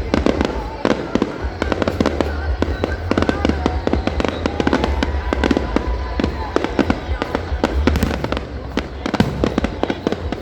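New Year fireworks display: a dense, continuous barrage of bangs and crackling, many bursts a second without a break.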